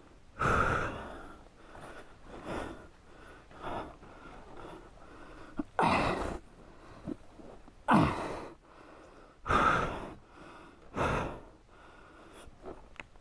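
A man breathing hard, with a loud gasping breath every second or two: he is out of breath from the effort of lifting a dropped motorcycle.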